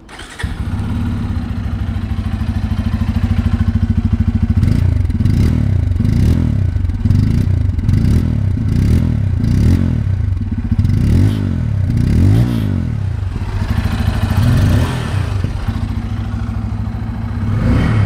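Bajaj Pulsar N250's single-cylinder engine starting on the electric starter and idling with a bassy, woofer-like exhaust note. From about four seconds in it is blipped repeatedly, a quick string of short revs and then two longer ones, before settling back to idle.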